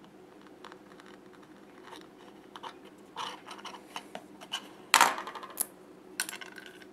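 Light clicks and scrapes as a bamboo skewer is cut with a small metal blade on a wooden board, with a crunch about three seconds in. Then come a few sharp knocks on the board as the pieces and the tool are handled, the loudest about five seconds in.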